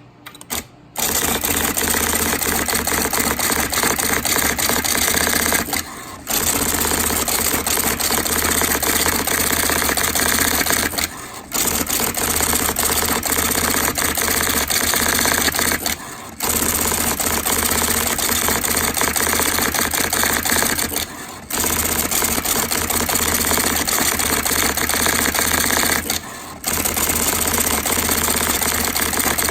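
IBM Electronic Typewriter Model 85 automatically printing a stored document at full speed: a fast, continuous rattle of typing strikes, with a brief lull about every five seconds.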